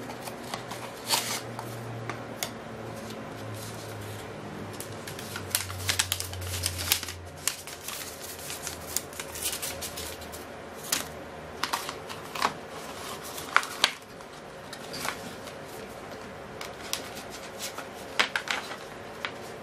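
Cardboard box and paper being handled: irregular rustles, crinkles and sharp clicks as the small retail box is opened and its folded paper manual pulled out and leafed through.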